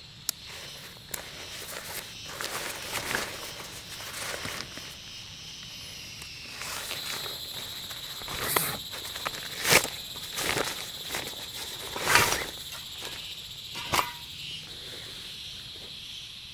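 Steady high insect chirring in the forest, growing stronger partway through, with footsteps and a handful of sharp knocks or snaps over it, the loudest near the middle.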